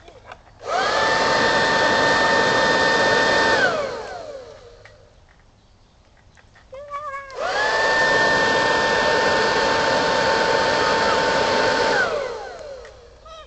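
Small handheld electric leaf blower switched on twice, running about three and about four and a half seconds, each time with a steady whine that rises as it spins up and falls as it winds down.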